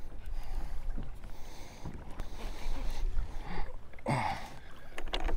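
Water sloshing against a fishing kayak's hull with wind buffeting the microphone as a low rumble, and a brief louder burst about four seconds in.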